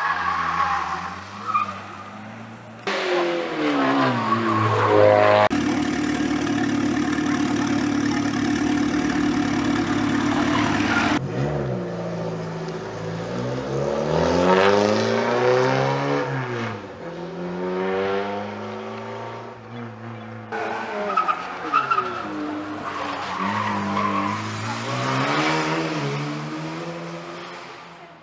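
Cars being driven hard on a circuit: engines rev up and drop back over and over through gear changes and corners, with tyre squeal. The sound changes abruptly several times, as separate clips are cut together, with a long steady high-rev stretch early on.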